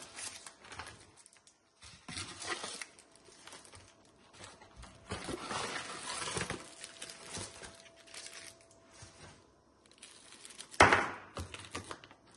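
Plastic sweet wrappers and cling film crinkling and rustling in irregular bursts as wrapped chocolates are handled, with one sharp, louder crackle near the end.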